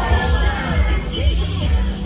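2010s K-pop dance music playing loudly over a hall's speakers, with a heavy, pulsing bass beat.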